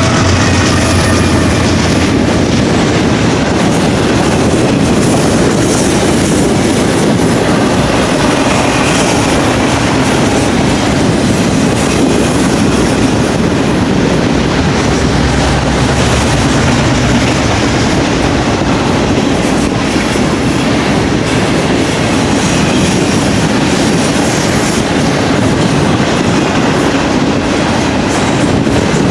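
Steady noise of a BNSF double-stack container train's cars rolling past at speed, with wheels clicking over the rail joints.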